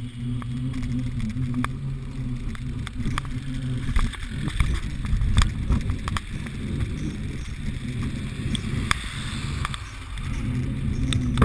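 Mountain bike riding over a city street, heard from a bike-mounted camera: wind rumble and tyre noise with short rattling clicks from the bike. A steady low hum is there at the start and comes back near the end.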